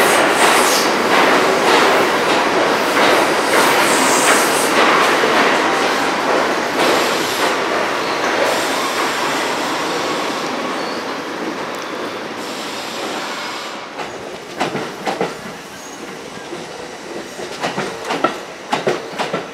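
R42 subway train passing at speed through an underground station: loud, steady wheel-on-rail rumble that fades gradually as the cars go by. In the last few seconds, quieter running broken by a string of sharp wheel clacks over rail joints.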